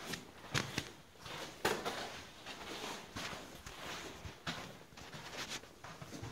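A hiker's irregular footsteps and scuffs on rock and grit while scrambling, a crunch every half second to a second.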